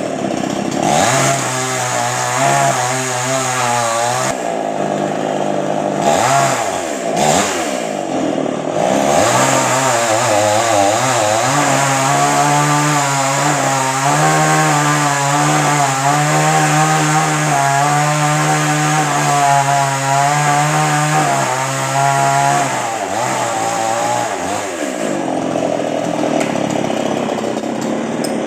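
Chainsaw revving up and down several times, then held at a steady, slightly wavering pitch for about twelve seconds as it cuts through coconut tree wood, before the pitch drops and rises again near the end.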